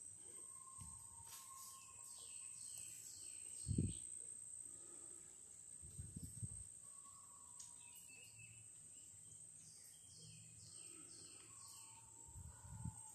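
Faint outdoor ambience after rain: a steady high-pitched insect buzz, with a bird singing a run of quick falling whistles twice. A few low thumps come from wind or handling on the phone microphone.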